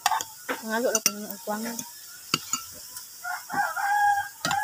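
Metal spoon and fork clinking and scraping against a plate while eating, with several sharp clicks.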